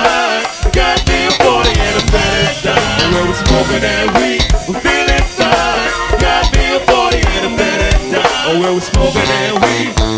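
Live go-go band music taken off the club's PA onto tape: a drum kit and percussion keep a steady groove under the rest of the band.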